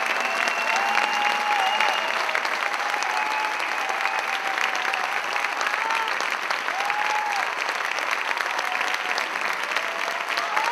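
Theatre audience applauding steadily, with a few short, held high calls rising above the clapping.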